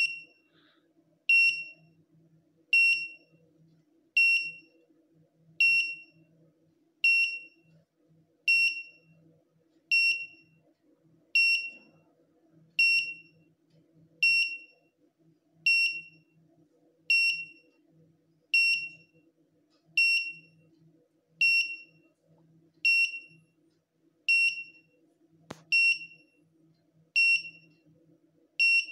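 Electronic buzzer on an Arduino countdown-timer bomb prop giving a short, high beep about every one and a half seconds, each beep marking a step of the countdown to 'explode'. A single sharp click about 25 seconds in.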